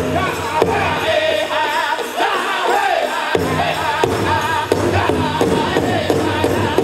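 Powwow drum group singing a chicken dance song: several voices in a high melody over a steady drumbeat. The drum drops back for about a second near the middle and then comes in again.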